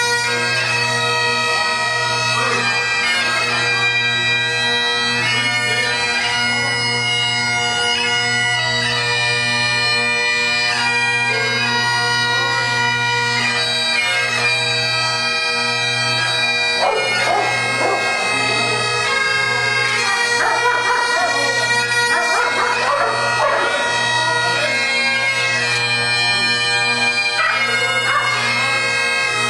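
Bagpipes playing a tune over their steady drone.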